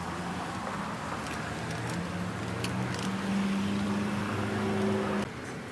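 A motor vehicle engine running, its pitch stepping up partway through, over a steady noisy background. It cuts off suddenly near the end.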